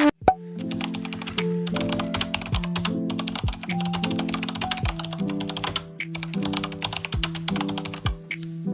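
Background music: held synth chords over a low bass note, with a quick, dry clicking percussion like keyboard typing.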